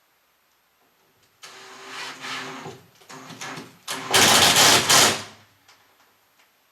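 Power drill driving a screw: the motor runs for about a second and a half, then a few clicks, then a second, louder run of about a second that stops.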